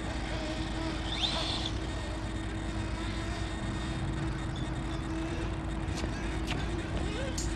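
Outdoor background noise: a steady low rumble with a faint steady hum, and a brief faint rising whine about a second in.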